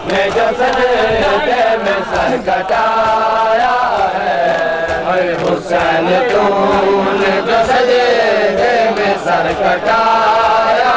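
A large group of men chanting a Shia mourning lament together in unison. Sharp slaps of hands on bare chests (matam) cut through the chant again and again.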